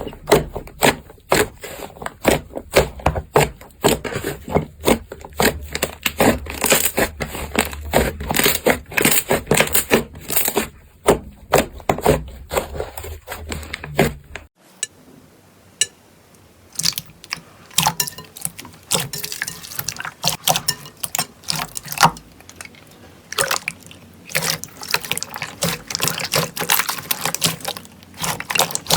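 Slime being squeezed, poked and stretched by hand, giving rapid, irregular wet clicks and pops. The sound changes about halfway through as a second slime clip begins.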